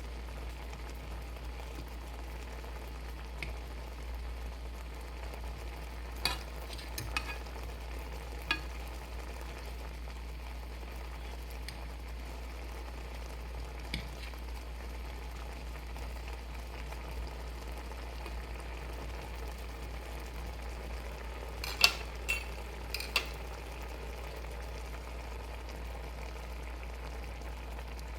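Shrimp simmering in a pan, a steady sizzle, with a few short sharp clicks now and then over a steady low hum.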